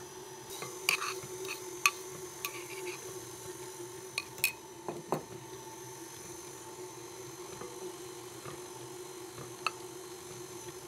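Electric stand mixer running steadily with a motor whine, its flat beater working flour and applesauce into cake batter in a glass bowl, with a few light clicks. Its owner says the mixer sounds as if it needs taking apart and fixing.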